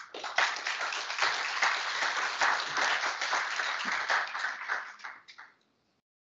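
Audience applauding, a dense patter of many hands clapping that thins out and dies away about five seconds in.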